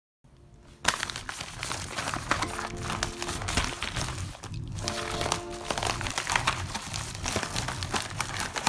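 Crinkling and rustling of a yellow padded mailer envelope as it is handled and opened and a plastic-packed item is drawn out, starting about a second in, over background music with a steady beat.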